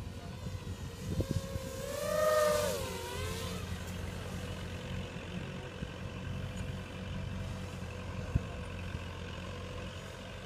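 Small FPV 250-class racing quadcopter's motors whining overhead, the whine swelling about two seconds in as it comes closer, rising slightly in pitch and then dropping as it moves off, then going on as a faint steady whine. A single click about eight seconds in.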